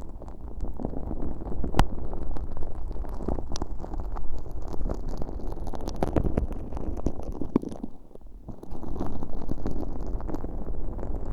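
Earpick working sticky, stiff slime loaded with fine glitter in both ears of a bare microphone with no plastic wrap: close, sticky squelching and crackling with many sharp clicks over a low rumble. It dips briefly about eight seconds in, then resumes.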